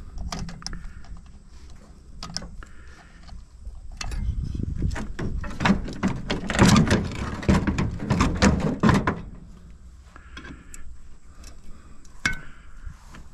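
Metal parts of an air-conditioner unit knocking and rattling as it is taken apart: a string of sharp clanks, densest from about four to nine seconds in.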